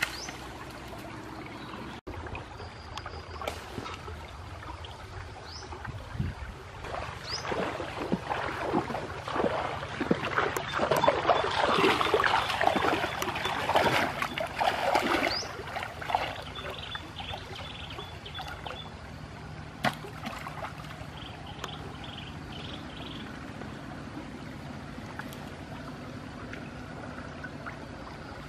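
Shallow river water splashing and sloshing as a wooden spear is jabbed and stirred into it, over the steady trickle of the flowing stream. The splashing is busiest and loudest for several seconds about a third of the way in, then settles back to the trickle.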